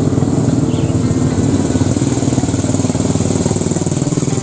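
An engine running steadily at idle, with a fast, even pulse.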